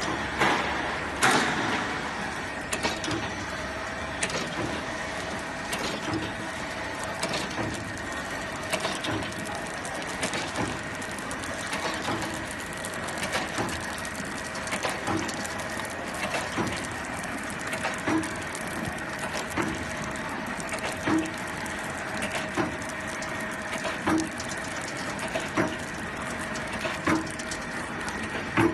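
Automatic slime extruding and cutting machine running: a steady motor hum with a regular mechanical knock about every second and a half, the cutter chopping the extruded slime strip into pieces.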